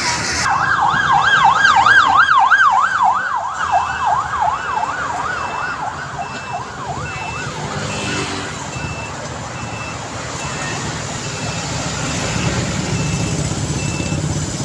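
Emergency vehicle siren in a fast yelp, sweeping up and down about three times a second, then fading away about halfway through. From a few seconds in, a high beep repeats about twice a second over the rumble of street traffic.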